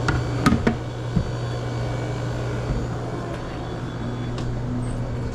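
A steady low mechanical hum, with a few sharp clicks and knocks in the first second and a half.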